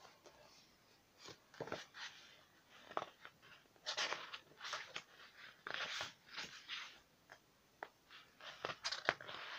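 Soft, irregular rustles and taps of a book's paper pages being handled and turned.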